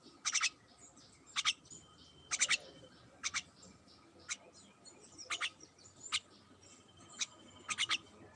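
Short, sharp bird chirps, mostly in quick groups of two to four, repeating about once a second.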